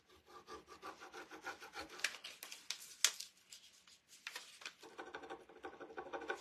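A small burnishing tool rubbed in quick strokes over the backing sheet of a rub-on transfer laid on a wooden cutting board, pressing the transfer down until it sticks: a faint, scratchy rubbing, with a few sharper scrapes about two and three seconds in.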